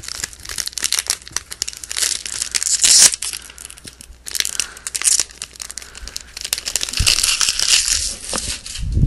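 A Topps Chrome trading-card pack's shiny wrapper being torn open and crinkled by hand: a dense crackle, with a short lull about three and a half seconds in.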